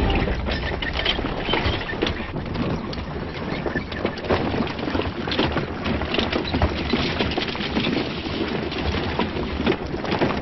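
Horse hooves and footsteps on a packed-earth road, an irregular clatter of small knocks.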